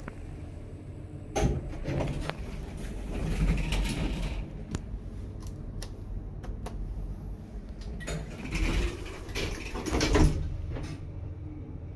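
Refurbished 1960s Schindler traction lift with its original relay control: a run of sharp clicks and clunks from the car doors and control gear over a low steady hum. The loudest clunk comes about ten seconds in.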